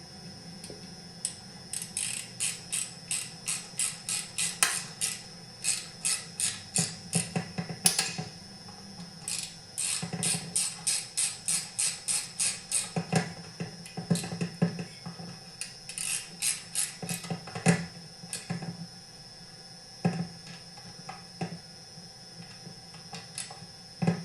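Ratchet wrench clicking in several runs of quick back-and-forth strokes, about three or four clicks a second, with short pauses between runs, as the connecting rod cap screws are tightened down.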